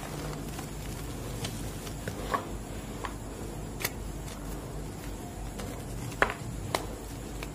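Hands crushing and crumbling lumps of green-dyed gym chalk over a bowl of chalk powder: soft gritty crunching with about six short, sharp cracks as pieces snap, the loudest a little past six seconds in.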